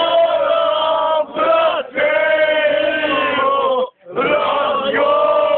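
Men singing loudly together in long, drawn-out held notes, breaking off briefly just before the four-second mark and then starting again.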